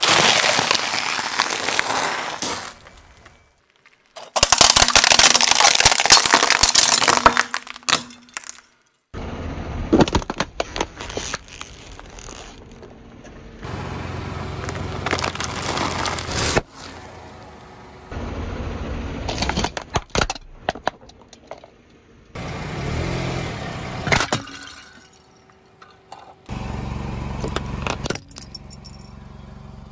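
A car tyre rolling over and crushing food and packaging one item after another: rolled wafers and a sealed snack bag crunching and cracking under the tread. Short stretches of crunching and crackling are cut one after the other, the loudest about four to eight seconds in.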